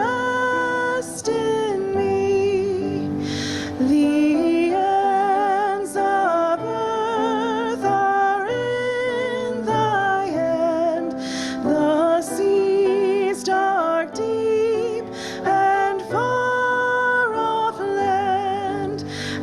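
Voices singing a slow hymn, moving in steps between long held notes with vibrato.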